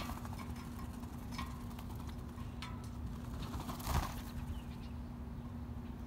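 Grackles' wings flapping as they take off from a feeding ledge, a burst at the start and a louder one about four seconds in, with a few short chirps between. A steady low hum runs underneath.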